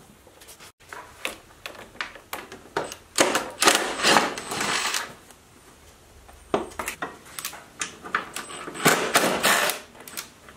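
Cordless drill/driver run in two short bursts, about three seconds in and again near the end, backing out the screws on the lawn mower's plastic drive-housing cover, with clicks and clatter of the tool and cover being handled.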